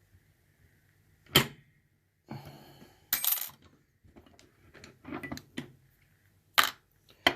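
Handling of a just-opened American 1105 padlock: four sharp metallic clicks and clunks spread through, with softer rustle of handling between.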